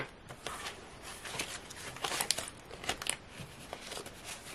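Paper planner pages and a clear plastic pocket insert rustling and crinkling as they are handled, with scattered light ticks and taps, a few sharper ones around two and three seconds in.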